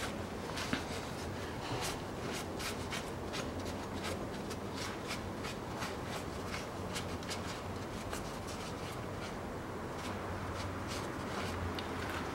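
Cloth rag rubbing along the engine block's oil-pan mating flange, wiping and degreasing it: a run of faint, short scratchy strokes over a steady background hiss.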